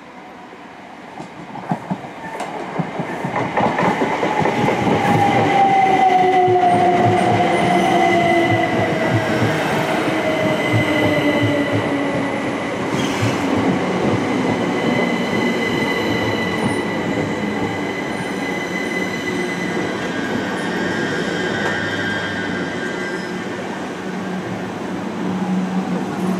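Two coupled Class 379 Electrostar electric multiple units pulling into a station and braking to a stop. The train gets louder over the first few seconds with wheel clicks on the rails, its traction motors whine down in pitch as it slows, and a steady high squeal runs under it.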